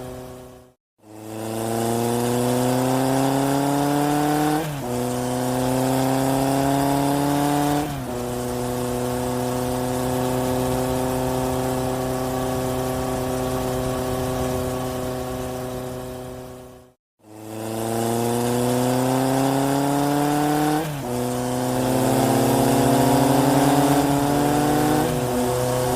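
Dubbed-in sound effect of a vehicle engine accelerating. It rises in pitch and drops at each gear change, twice, then holds a steady cruise. The sound cuts off abruptly twice and restarts as the effect loops.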